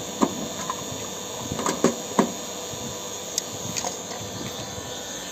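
A screwdriver and hands fastening the plastic service-valve cover on a split air conditioner's outdoor unit: a few scattered clicks and knocks, the sharpest in the first two and a half seconds, over a steady background noise.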